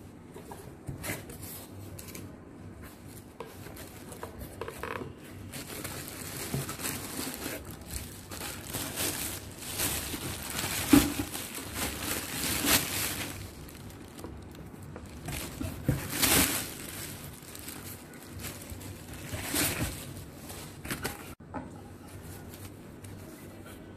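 Plastic packaging crinkling and rustling in irregular strokes as a stainless-steel casserole and its lid are unwrapped by hand, loudest in the middle stretch.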